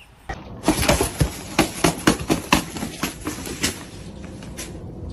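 A quick, irregular series of knocks and clatters, about a dozen sharp strikes over three seconds, thinning out near the end.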